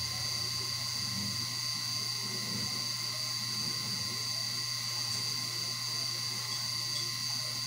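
Steady mechanical hum with a constant high-pitched whine, unchanging throughout.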